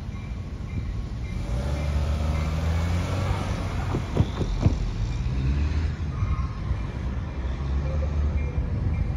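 Diesel freight locomotives, EMD GP15-1s with 12-cylinder EMD 645 engines, running as the train approaches: a steady low rumble that grows a little stronger after the first second or two. Two sharp knocks come about four seconds in. A grade-crossing bell dings faintly and repeatedly in the background.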